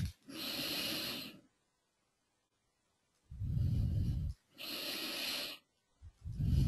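A person breathing close to a headset microphone, about two breaths: each a hissing breath lasting about a second, followed after a pause by a low blowing rumble of breath on the mic.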